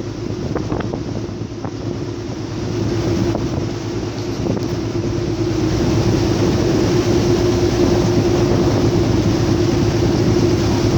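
Fishing boat's engine running steadily at trolling speed, with wind buffeting the microphone. The engine hum grows louder about halfway through.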